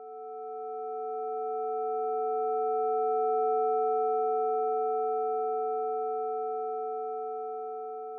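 Synthesised chord of about five steady pure sine tones from a Sonic Pi data sonification, sounding the histogram of red wine quality ratings as a spectral profile. It swells in, peaks about three and a half seconds in, and slowly fades out.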